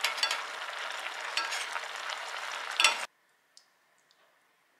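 Squid and daikon simmering in a soy-based broth in a pan, the sauce bubbling and sizzling as it reduces, with a few sharp crackles. It cuts off abruptly about three seconds in.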